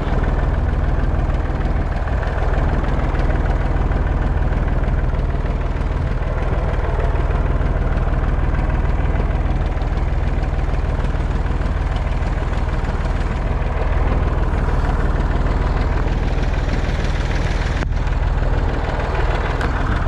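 Small red farm tractor's engine running steadily as the tractor drives along, heard up close from on board.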